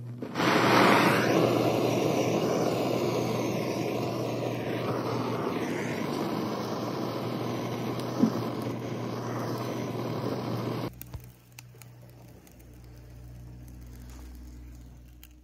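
Handheld butane gas torch burning with a steady, loud hiss as its flame is played on a yeontan coal briquette to light it. It starts suddenly just after the start, has one sharp click about eight seconds in, and cuts off abruptly about eleven seconds in.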